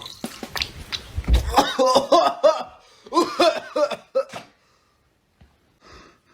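A person's voice making a run of short wordless vocal sounds for a couple of seconds, after a few knocks at the start, then near silence.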